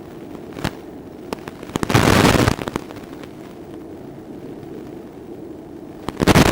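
A model plane's electric motor drones steadily, broken by loud bursts of crackling noise about two seconds in and again near the end, with scattered clicks between.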